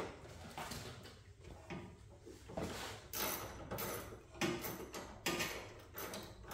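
A wrench on a 10 mm screw in a Porsche 944 pop-up headlight bracket, loosening it: scattered short metal clicks and scrapes at an irregular pace.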